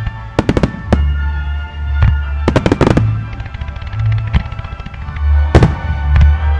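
Aerial fireworks bursting in sharp reports over music with a deep bass line: a few reports early, a quick rattling run about halfway through, and the loudest burst near the end.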